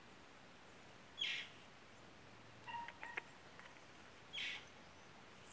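A few short, faint bird chirps, spaced out by a second or more, over a quiet outdoor background.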